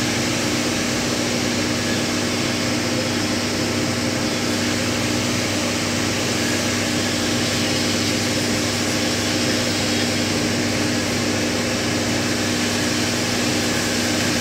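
A steady machine hum over a constant noisy background, unchanging throughout.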